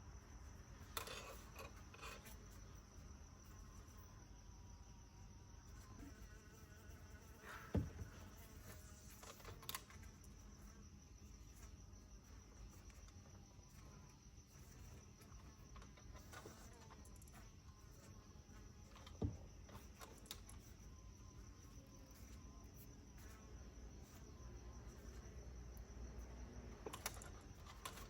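Near silence, with a faint steady high whine and a few scattered soft clicks and knocks, the loudest about eight seconds in and again near the middle.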